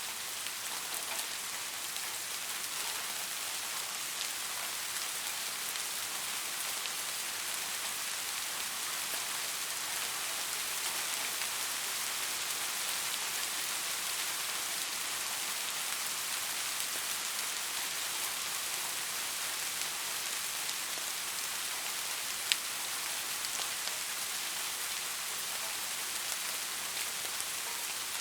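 Steady soft rain falling and pattering on a surface, an even hiss of many small drops, with one sharper drop tick about 22 seconds in.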